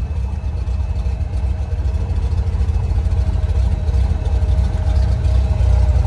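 1961 Cessna 182's six-cylinder Continental O-470 engine idling, heard from inside the cabin as a steady low drone with a thin steady whine above it.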